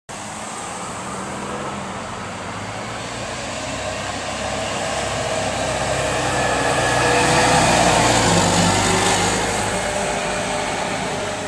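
New Flyer C40LF natural-gas transit bus driving past: a steady engine hum with a whine over it, growing louder as the bus nears. It is loudest about seven or eight seconds in, then fades as the bus pulls away.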